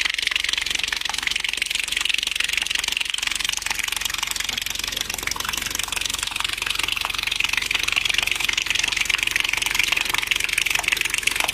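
A subwoofer driven with a 23 Hz test tone, giving a steady low buzz, over an even hiss of water running from the hose taped to it.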